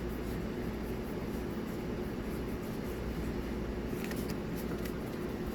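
Steady low room hum from a fan or air conditioner. About four seconds in there are a few faint, brief ticks of trading cards being handled.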